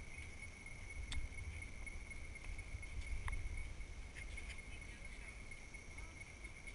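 Steady high-pitched insect drone, one unbroken tone, with a low rumble on the microphone and a couple of faint clicks, about one second and about three seconds in.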